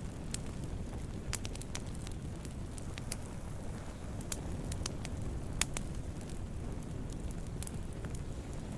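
Wood campfire burning: a steady low rumble of flames with irregular sharp crackles and pops, one of the loudest a little past halfway.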